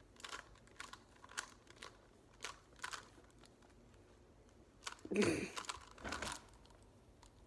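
Plastic clicks and clacks of a Skewb puzzle being turned by hand, a handful of short sharp clicks in the first three seconds, then a brief louder vocal sound about five seconds in followed by another clack.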